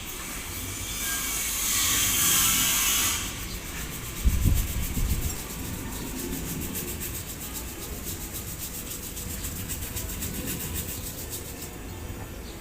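Metalwork on a steel pressure tank under brazing repair: a loud hiss for about two seconds, a few heavy knocks about four seconds in, then fast, even rhythmic scraping or rubbing on the metal.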